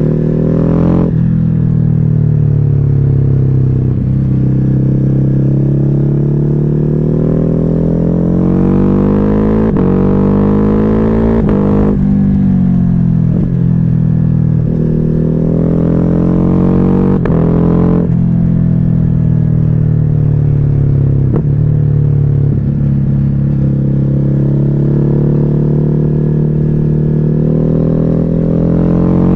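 Ducati Hypermotard 950's L-twin engine through a Termignoni exhaust with the dB killer removed, riding: the exhaust note climbs under throttle and falls back several times, with a few sudden drops in pitch.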